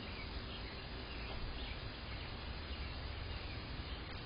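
Faint, scattered bird chirps over a steady hiss and low rumble.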